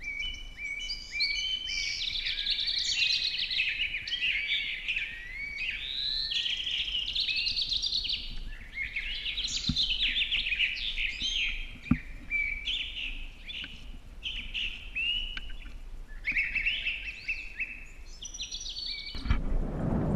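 Several small birds chirping and singing in overlapping, busy calls, with a couple of faint knocks near the middle. About a second before the end it changes abruptly to wind rushing over the microphone.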